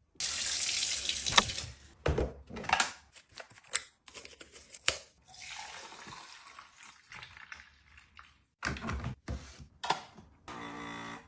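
Water running for about two seconds, then a series of light knocks and clicks as items and containers are handled, with a short buzzy tone near the end.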